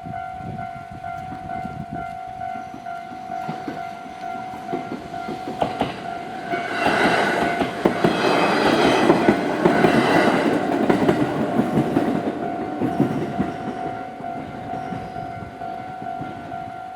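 A train passes over a level crossing, its rumble and wheel clatter building to a peak midway and then fading. The crossing's warning bell rings as a steady tone throughout.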